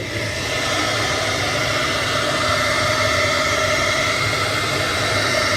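Hand-held hair dryer switched on and running steadily, a loud even rush of air with a faint steady hum under it, blowing on iced-up refrigerator evaporator coils to melt the frost.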